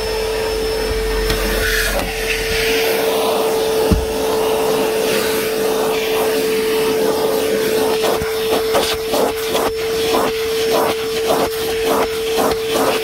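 DeWalt 9-gallon, 5 hp wet/dry shop vacuum running with a steady whine over the rush of suction. There is a single knock about four seconds in. From about eight seconds there are short repeated strokes, about two or three a second, as the nozzle is worked over the carpet.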